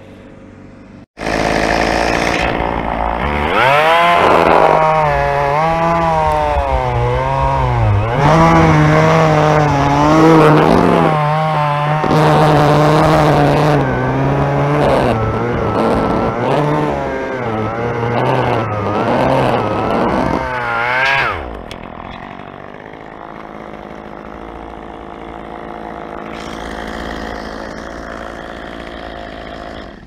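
Two-stroke chainsaw running at high throttle for about twenty seconds, its pitch sagging and recovering again and again as it cuts through limb wood. It then drops back to a quieter, steady idle.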